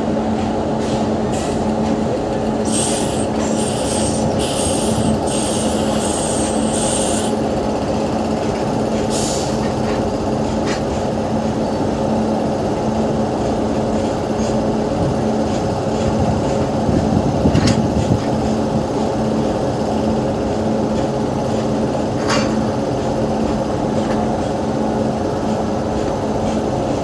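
WAP7 electric locomotive standing with its machinery running: a steady, loud hum with fixed tones. A few short high hisses come in the first several seconds, and there is a louder low thump about two-thirds of the way through.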